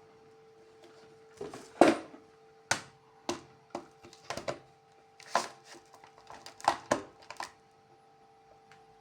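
A dozen or so irregular sharp clicks and knocks, like hard objects being handled, over a faint steady hum.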